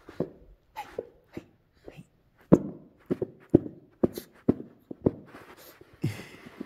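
A small dog giving a string of short, sharp play barks, about a dozen at irregular half-second gaps, while it bounces in a play bow.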